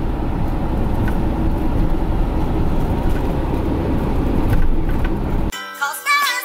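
Steady road and engine noise heard inside the cab of a moving Mercedes Sprinter van, cut off suddenly about five and a half seconds in by music with a melody line.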